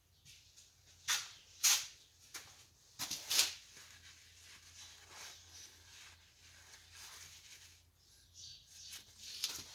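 Workbench handling noise: a few short knocks and scrapes as parts and hand tools are worked at a vise, over a faint steady low hum.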